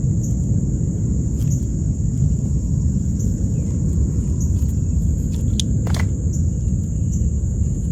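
Steady low outdoor rumble with a thin high whine above it, and a few faint clicks around the middle.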